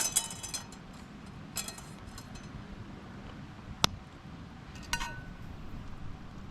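Camp cookware being handled: light clinks with a brief ringing tone. There are clusters near the start, around a second and a half in and about five seconds in, with one sharp tap near four seconds, over a steady low background hiss.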